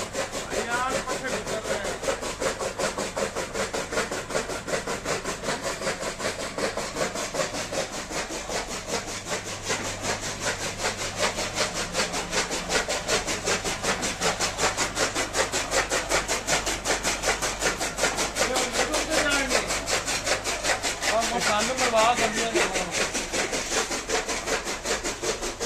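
Electric chaff cutter running, its blades chopping green fodder in a rapid, even rhythm of cuts over a steady motor hum.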